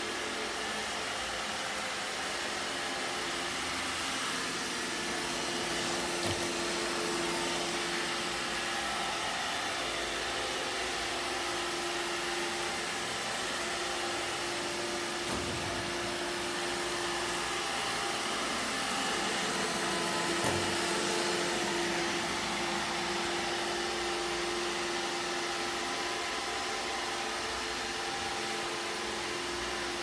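iRobot Roomba e5 robot vacuum running across a wooden floor: a steady whir of its suction and brushes under a constant hum. A few faint knocks come as it bumps against the wall.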